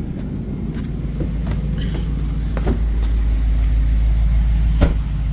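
Engine idling steadily with a deep rumble while it warms up; a single sharp click about five seconds in.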